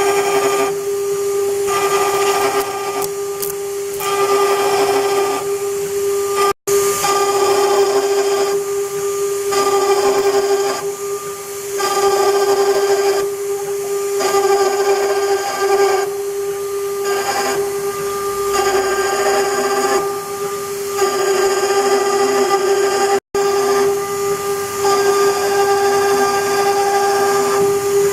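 CNC router spindle running with a steady high-pitched whine while its bit engraves copper. A hissing cutting noise comes and goes every second or two as the bit moves through its passes. The sound cuts out for an instant twice.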